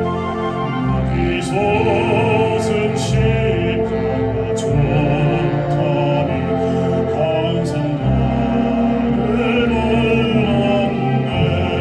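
Live pops orchestra playing a slow piece: a melody with vibrato over sustained low notes, with a few short ticks on top.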